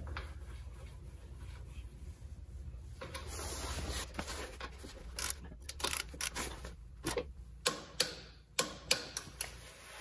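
Ratchet wrench clicking as a bolt at the front axle on a motorcycle fork slider is tightened: irregular sharp clicks and knocks that start about three seconds in and come thickest in the second half.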